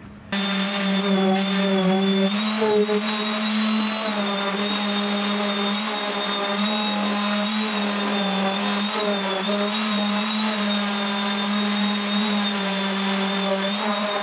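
Electric random orbital sander running steadily as it sands a wooden board frame. It gives a held motor whine over a hiss, cutting in suddenly just after the start.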